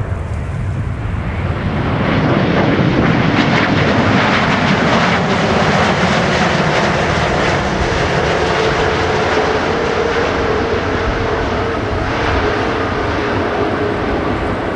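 Airbus A340-500's four Rolls-Royce Trent 500 jet engines roaring as the airliner rolls out on the runway after touchdown. The roar swells about two seconds in and holds steady, and a faint steady hum joins it about halfway through.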